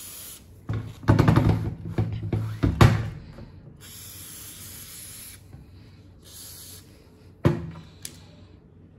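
Aerosol penetrating lubricant (rust-and-moisture remover) sprayed in short hissing bursts onto the presser bar and needle bar of a sewing machine. One brief burst comes at the start, a longer one of about a second and a half comes about four seconds in, and a short one follows near seven seconds. A louder clatter of handling fills the stretch from about one to three seconds in, and a single sharp knock comes about seven and a half seconds in.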